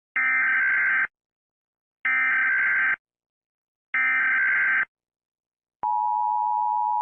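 Emergency Alert System SAME header: three identical bursts of shrill digital data warble, each just under a second long and about a second apart. About a second after the last burst, the steady two-tone EAS attention signal begins, announcing a new alert.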